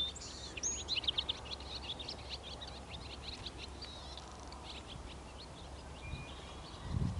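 Small birds singing and chirping: a quick run of high, rapid notes about a second in, then scattered chirps. A low muffled rumble comes near the end.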